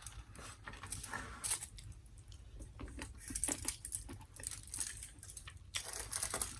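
Soft crinkling and rustling with scattered light clicks, in short bursts: food and its wrapping being handled close to the microphone, as a tightly tied sticky-rice cake is unwrapped.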